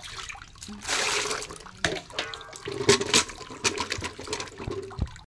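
Water sloshing and splashing in a metal bucket as green mangoes are turned and rubbed by hand to wash them, in uneven surges with a few sharper splashes.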